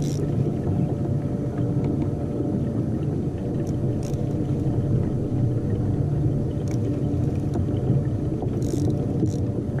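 Steady low rumble of water and the hull of a kayak at sea, with a few brief faint high ticks or hisses near the end.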